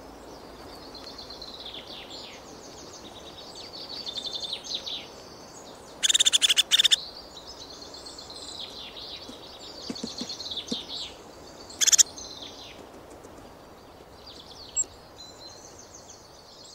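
Small woodland songbirds calling: a busy run of high, thin calls and twitters, with a loud, rapid trill about six seconds in and a sharp, loud call about twelve seconds in.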